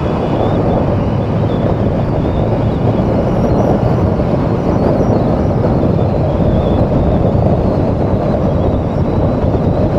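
Steady rush of wind and road noise from a 2022 Yamaha R7 sport bike ridden at expressway speed, the engine buried under the wind.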